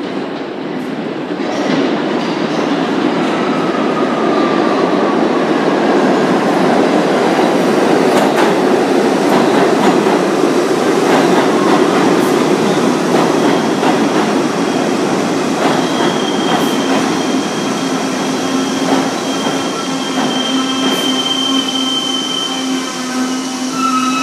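R62A subway train pulling into an underground station. A heavy rumble builds over the first few seconds, with clacks of wheels over rail joints. Over the last several seconds, as it slows along the platform, a steady high squeal and a lower hum come in.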